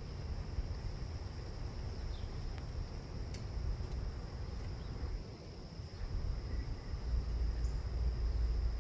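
Outdoor night ambience: a steady high insect drone, like crickets, over a low, uneven rumble, with a few faint ticks.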